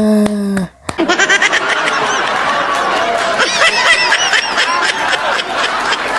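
A steady low tone stops just under a second in, and then several people laugh and snicker continuously.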